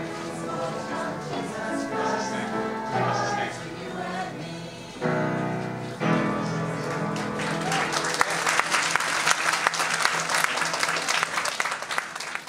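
A choir sings and closes on a held chord about five seconds in. Audience applause follows and grows louder over the last few seconds.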